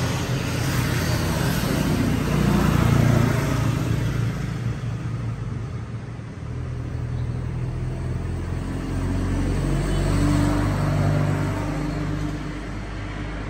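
Low rumble of motor vehicles passing, swelling about three seconds in and again about ten seconds in.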